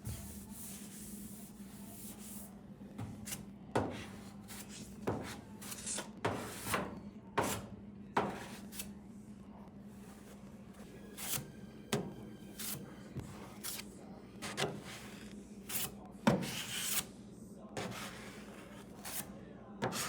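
Body filler being scraped and spread over a car panel with a spreader, in short, irregular strokes, over a steady low hum.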